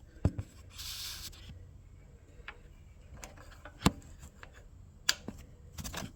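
Scattered small clicks and taps of a hand working a choke lever onto a small petrol engine's carburettor, the sharpest about four seconds in. There is a short hiss about a second in.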